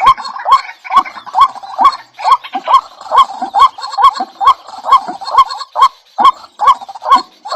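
A bird calling over and over in a steady rhythm, about two short rising notes a second, each with a sharp click.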